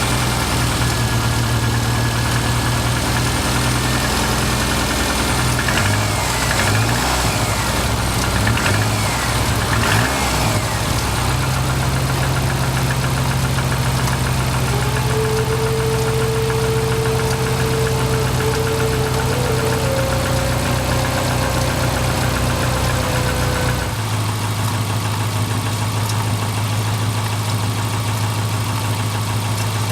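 Subaru Forester's flat-four boxer engine idling with a knock, the fault the engine is being recorded for. The running wavers briefly between about 6 and 11 seconds and its tone shifts near the end.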